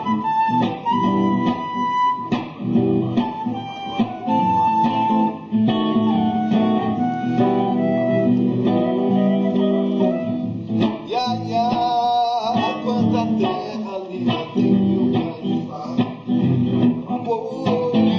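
Live guitar-led music during a band's sound check: plucked guitar notes and strumming played continuously.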